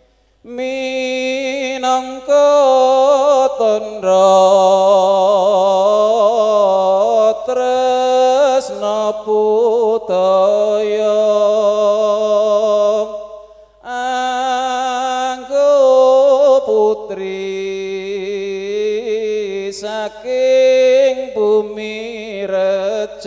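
Unaccompanied chant-like singing of an angguk dance song, with no drums playing. The singing breaks off briefly about halfway through, then resumes.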